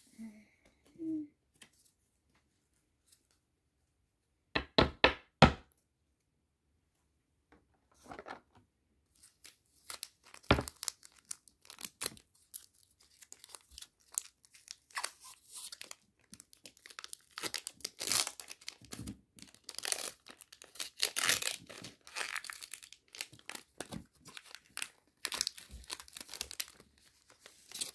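Foil wrapper of a Pokémon TCG booster pack crinkling and tearing as it is opened by hand, a busy irregular crackle through the second half. Earlier there is a quick run of sharp taps and, a few seconds later, a single knock.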